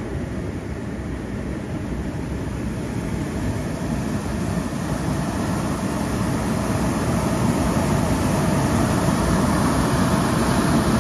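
Whitewater rapid rushing: a steady roar of churning river water that grows slowly louder.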